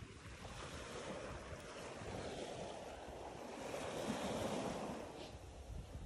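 Sea waves washing onto a pebbly beach, with wind rumbling on the microphone; the surf swells about four seconds in.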